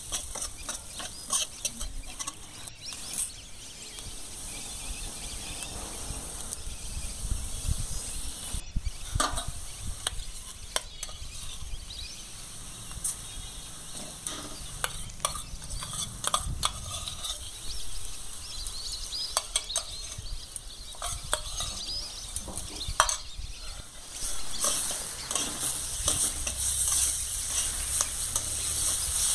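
Stainless-steel spatula stirring and scraping moong dal in a metal kadai: the dry lentils rustle and hiss against the pan, with scattered sharp clicks of the spatula on the metal. The stirring gets louder near the end.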